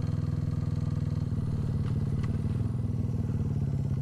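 Motorcycle engine running steadily while riding, with a rapid even pulse; its note shifts slightly about a second in.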